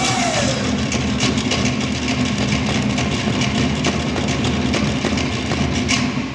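Tahitian drum ensemble playing a fast ote'a rhythm: rapid, even strokes on wooden slit drums over a steady bass drum beat. It cuts off sharply at the end of the number.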